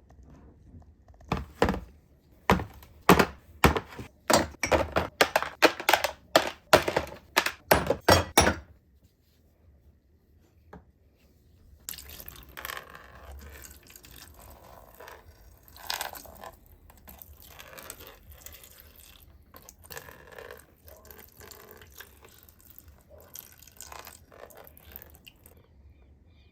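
A run of sharp knocks, about three a second for some seven seconds, then after a pause a quieter, uneven scraping and rubbing with an occasional knock: hand work on a part during the restoration of an old drill.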